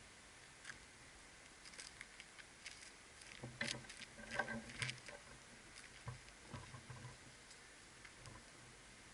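Cossack shashka being twirled: faint, irregular swishes of the blade cutting the air mixed with light scuffing footsteps on pavement, busiest about halfway through.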